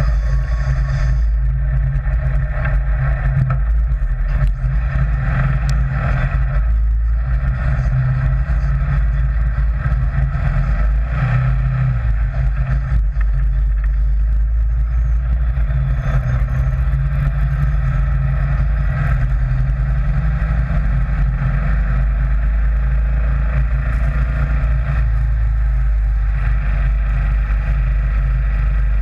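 Sand rail (dune buggy) engine running steadily while the buggy drives along, over a heavy, steady low rumble.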